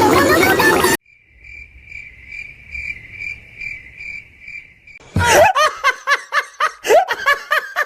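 Cricket chirping, an even train of high chirps about twice a second, used as the awkward-silence meme effect; it is cut in after a loud burst of sound in the first second. From about five seconds in, quick repeated laughter takes over.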